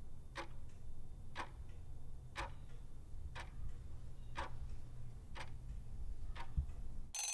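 Quiz countdown timer ticking once a second over a low steady hum. Near the end a ringing alarm tone starts.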